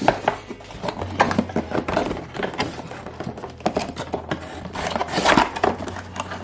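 A box and its packaging being opened and handled by hand: irregular scrapes, rustles and light knocks, busiest about a second in and again near the end.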